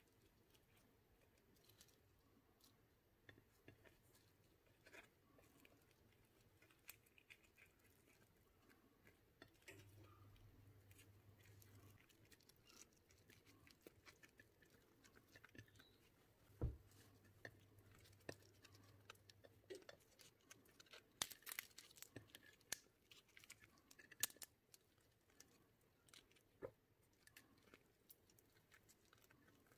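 Near silence broken by faint, scattered rustles and light taps of a thin spring-roll wrapper being folded by hand on a ceramic plate, with a few sharper clicks in the middle and latter part.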